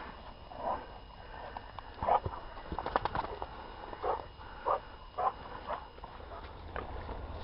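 A pointer dog panting in short puffs at the handler's feet, with a few sharp handling clicks about three seconds in.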